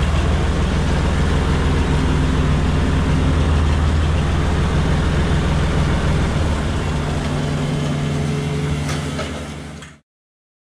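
Tractor engine running steadily. About six seconds in its deep low rumble drops away and the note carries on lighter, then the sound fades out quickly near the end.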